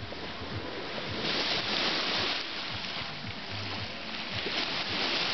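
Small waves washing up on a sandy beach, the wash swelling about a second in and again near the end.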